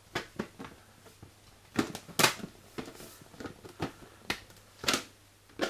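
Irregular sharp clicks and knocks of plastic washing-machine door and hinge parts being handled and pressed together, with the loudest knocks about two seconds in and near the end.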